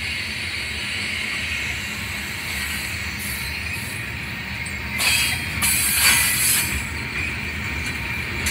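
Covered hopper cars of a freight grain train rolling past, with a steady low rumble and a continuous high-pitched wheel squeal. Louder, harsher screeching bursts come in about five seconds in and again about a second later.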